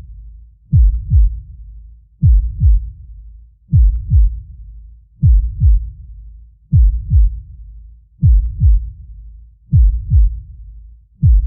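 Deep, slow heartbeat sound effect: a low double thump (lub-dub) about every second and a half, over a steady low rumble.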